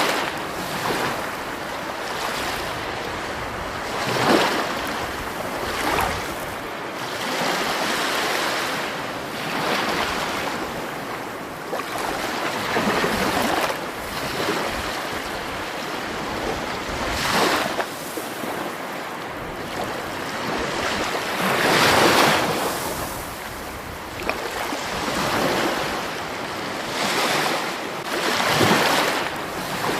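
Rushing water: a continuous wash that swells and eases irregularly every few seconds.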